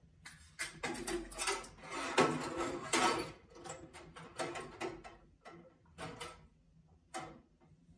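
Steel rifle trigger-group parts in a wire basket clattering against the stainless-steel tank of an ultrasonic cleaner as the basket is lowered into the cleaning fluid. A dense run of metallic clinks and knocks comes in the first few seconds, then scattered single clinks as the parts are settled.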